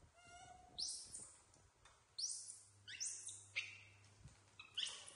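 Baby macaques giving short, high-pitched squeaks, about five of them a second or so apart.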